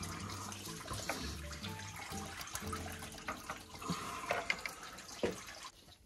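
Engine coolant trickling and dripping as the water pump is worked loose, with small metal clicks of hands and tools, over background music; it all dies away just before the end.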